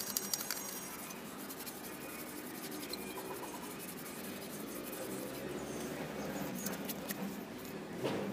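A damp cloth rubbed back and forth over an electric iron's metal soleplate to scrub off rust: a soft, scratchy rubbing with many small clicks. A slightly louder knock near the end.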